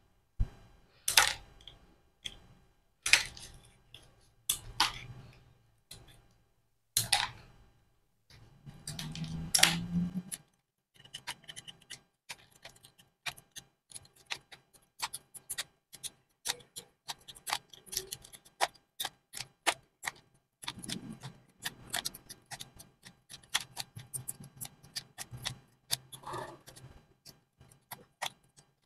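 Scissors snipping a dry-cell battery's zinc casing into small pieces: a few loud, separate snips a second or two apart, then a long run of small, quick clicking snips, with a brief rustle about nine seconds in.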